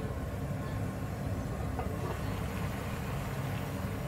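Steady low kitchen rumble while the lid of an enamel cooking pot is lifted, with a couple of faint light knocks about halfway through.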